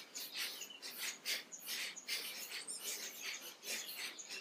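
Kapalabhati breathing: rapid, forceful puffs of breath pushed out through the nose by sharp contractions of the belly, about four a second and slightly uneven.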